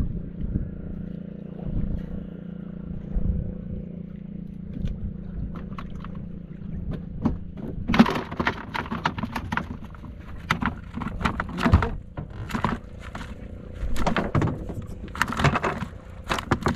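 Small fishing boat's engine running steadily. From about eight seconds in there is a series of sharp knocks and clatters.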